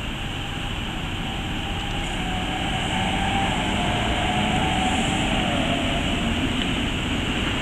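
Locomotive-hauled passenger train passing over a level crossing: a steady rumble that grows louder as it comes through. A whine rises above the rumble about two seconds in and fades near the end.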